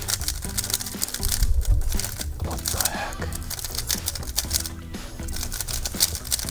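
A 3x3 puzzle cube being turned fast during a timed speed solve: a rapid run of plastic clicks and rattles, over background music.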